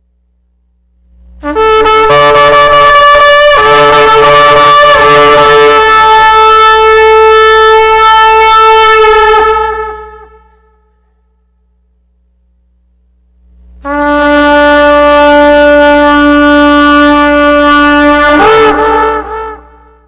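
Two long horn blasts, the first held about eight seconds and the second about six seconds, the second breaking into a wavering pitch just before it stops.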